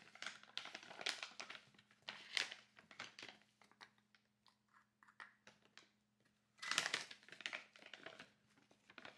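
Faint crinkling and rustling of a package with scattered small clicks and taps, and a louder rustle about seven seconds in: a container of vegan protein powder being opened and scooped out.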